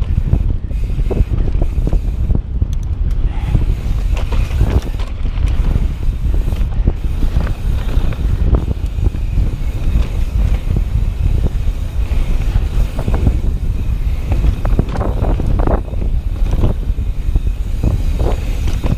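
Knolly Warden Carbon mountain bike descending a rough dirt trail at speed: a continuous clatter and rattle of the bike and tyres over the ground, with wind buffeting the microphone.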